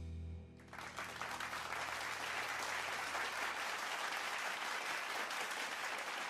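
A band's final sustained chord breaks off about half a second in, its low notes ringing on faintly, and an audience breaks into steady applause.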